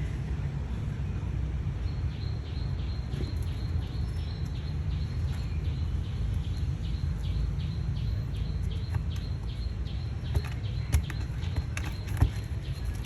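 A small bird calling a short high chirp over and over, about three times a second, over a steady low rumble, with a few sharp clicks near the end.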